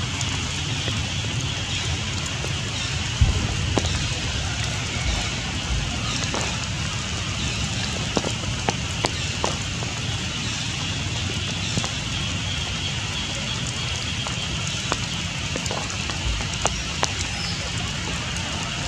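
Steady rain falling on forest foliage, with scattered drips and ticks.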